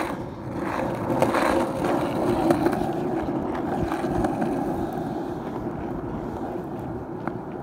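Skateboard wheels rolling over a concrete sidewalk: a steady rumble that builds about a second in and slowly eases off, with a few sharp clicks along the way.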